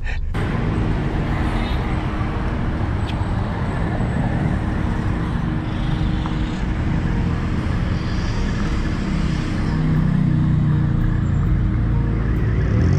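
City road traffic: cars and motorbikes passing on a busy street, a steady wash of engine and tyre noise. The engine hum grows louder about ten seconds in.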